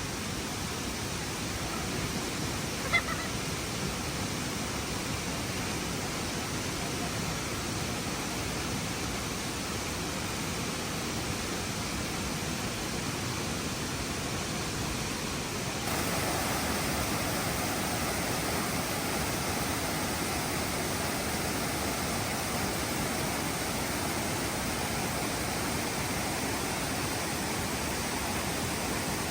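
Waterfall cascade rushing steadily, growing louder and brighter about halfway through. A short high chirp sounds about three seconds in.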